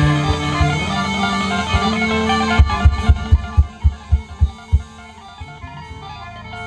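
Live band music over the PA with electric guitar and held keyboard notes, then a string of heavy drum beats from about two and a half to five seconds in. After the drums the music goes quieter and thinner.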